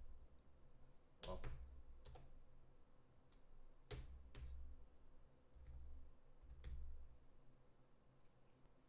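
Computer keyboard keystrokes, a few sparse, irregular clicks with dull low thuds, spread over several seconds with quiet gaps between.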